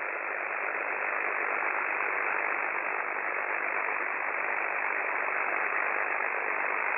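Steady hiss of band noise from an Icom IC-7610 transceiver receiving on 6 m (50 MHz) SSB with no signal on frequency, heard through the narrow voice filter, so it is thin, with no deep bass and no high treble.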